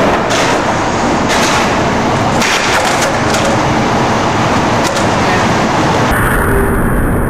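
Skateboard wheels rolling on rough concrete, a loud steady rumble broken by several sharp clacks of the board hitting the ground. About six seconds in, it changes to a deeper rumble.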